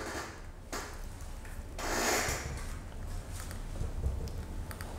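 Laptop keyboard keys tapping in scattered short clicks as a name and email are typed into a form. A brief breathy rush of noise, the loudest sound, comes about two seconds in.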